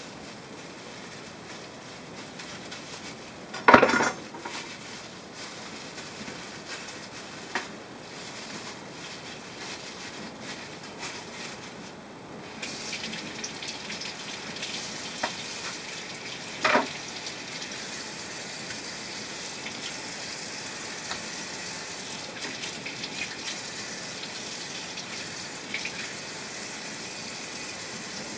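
Kitchen sink sounds: a loud clatter about four seconds in and a few lighter knocks, then, from about twelve seconds in, the steady hiss of tap water running.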